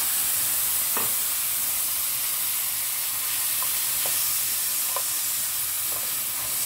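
Pork ribs sizzling in hot garlic oil in a frying pan, a steady loud hiss, while a spatula stirs them, with a few light knocks of the spatula on the pan.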